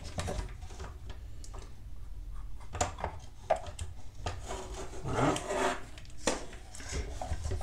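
Plastic model parts handled and rubbed together, with scattered clicks and scrapes as a rubber-tyred wheel is pressed onto the rear axle of a plastic RC compactor model.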